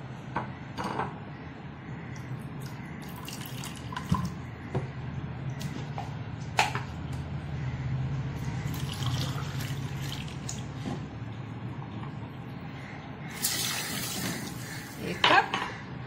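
Water being poured over sugar in a metal pan to make sugar syrup, with a few sharp knocks against the pan and a louder splash of pouring near the end.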